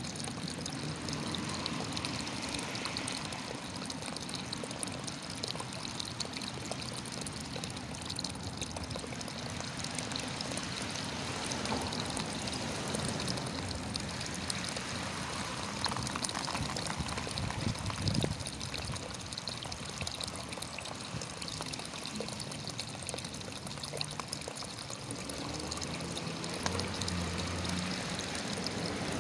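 Running water trickling steadily, a continuous flow flecked with small drips and splashes.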